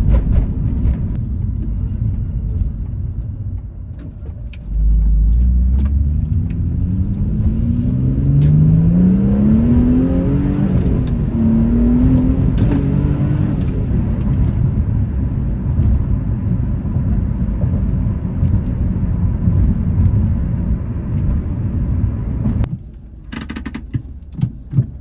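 The 2008 Mitsubishi Eclipse GT's 3.8-litre V6 pulling hard under acceleration. Its note rises twice, with a gear change between, about midway through. It then settles into steady engine and road noise, which drops away sharply near the end.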